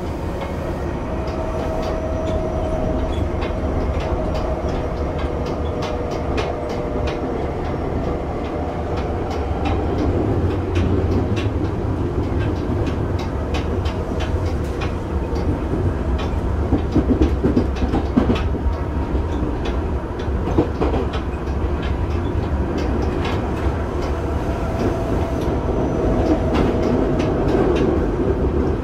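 Tokyo Metro 7000-series electric train running at speed, heard from inside the car: a steady low rumble of wheels on rail with many rail-joint clicks, and a faint steady whine near the start and again near the end. A little past halfway, a run of louder clacks and knocks.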